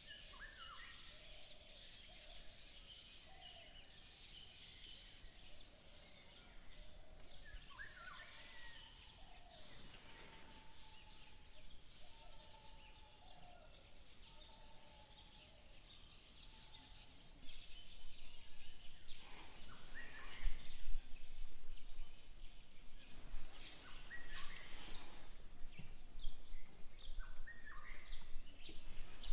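Outdoor ambience with many birds calling: short chirps and whistles over a steady background hiss, which grows louder about two-thirds of the way through.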